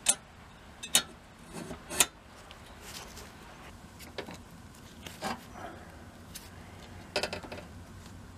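ARES hand pop rivet gun setting pop rivets through flat steel bars: three sharp metallic clicks about a second apart at the start, then lighter clicks and metal handling clatter.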